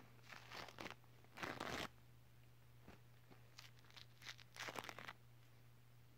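Tissue paper crinkling and rubbing against a camera lens, close to the microphone, in several short bursts of dry rustling. The loudest burst comes about a second and a half in, and another cluster comes around four to five seconds.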